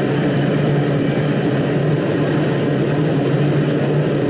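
Diesel-electric freight locomotive engine running steadily close by, an even low drone with a steady hum that does not change.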